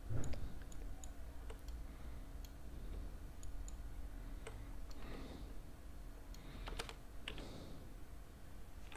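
Computer keyboard keys and a mouse clicking at an irregular pace, with a few louder key strikes about halfway and about three-quarters through.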